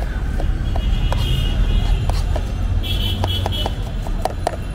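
Kitchen knife chopping a red onion on a plastic cutting board: a run of short taps, spaced out at first and coming faster near the end, over a steady low rumble of street traffic.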